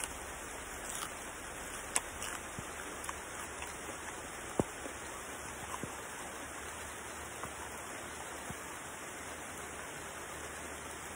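Steady outdoor background hiss with a few faint single clicks.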